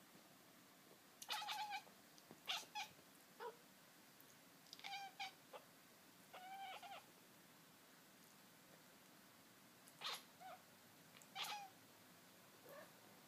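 Domestic cat chattering: about nine short, clipped chirping bursts with a rapid stutter, in clusters, with a pause of about three seconds in the middle.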